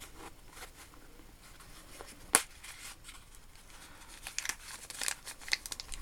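Packaging rustling and crinkling as a small box or packet is opened and its contents unwrapped, with one sharp knock about two and a half seconds in. The crinkling grows busier near the end.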